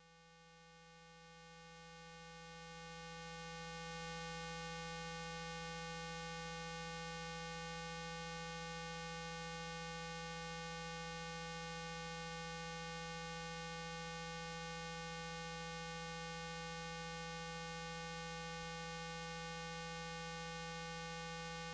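Steady electrical hum and buzz, a fixed set of tones that never changes. It swells up over the first few seconds and then holds level.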